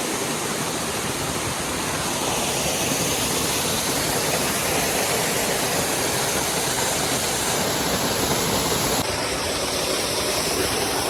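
Waterfall close by, its falling water a steady, loud rush that drowns out a voice.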